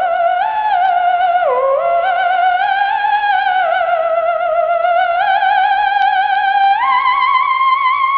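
A single spooky wavering tone with a steady vibrato, sliding slowly up and down between held pitches, like a theremin.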